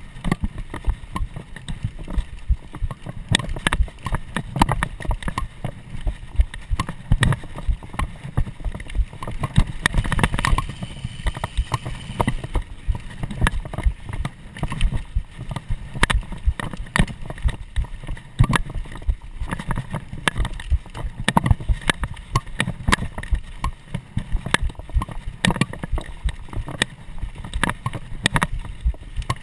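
Mountain bike ridden fast over rough dirt singletrack, picked up by a camera mounted on its handlebars: a constant, irregular rattle and knocking of the bike and camera mount over bumps, over a steady low rumble from the tyres and wind.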